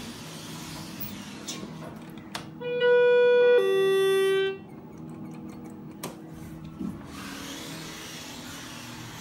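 Schindler elevator chime sounding two long notes, a higher one then a lower one, very loud, about three seconds in. A steady low hum runs underneath, and a sharp click follows a little later.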